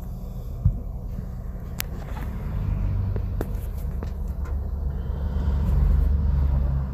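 Low vehicle rumble heard from inside a car, swelling through the second half and easing off at the end. There is one sharp knock about a second in and a few faint clicks.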